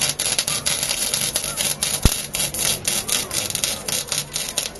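MIG welder arc crackling and hissing as a weld is run on steel: a fast, irregular crackle.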